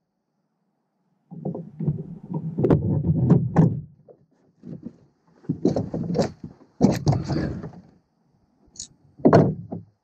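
Irregular knocks, thumps and scraping on a plastic kayak deck as a landing net with a northern pike in it is set down and handled. The sounds come in several bursts, starting about a second in.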